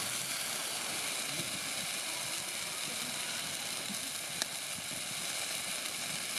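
Campfire burning in a small folding fire pit: a steady hiss with one sharp crack about four seconds in.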